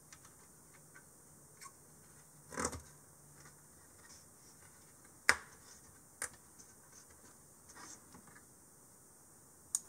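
A few scattered handling clicks and a short rustle from hands working on a socketed 386 mainboard while SRAM cache chips are swapped. The loudest is a single sharp click about halfway through.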